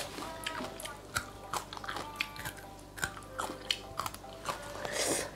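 Close-up chewing of a crunchy raw green vegetable, heard as many short, crisp crunches and wet mouth clicks.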